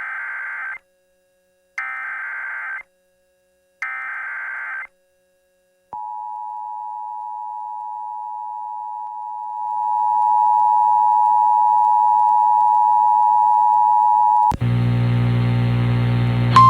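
Emergency Alert System header: three bursts of SAME digital data squawk, each about a second long, followed by the two-tone attention signal held steady for about eight seconds and growing louder partway through. Near the end the tones give way to a loud buzzing hum with static.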